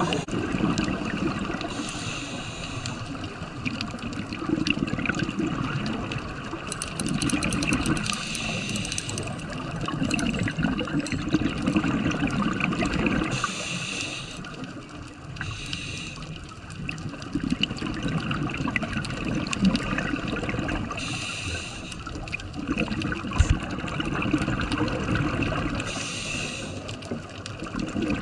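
Scuba diver breathing through a regulator underwater: a short hissing inhalation every few seconds, each followed by a longer bubbling rumble of exhaled air.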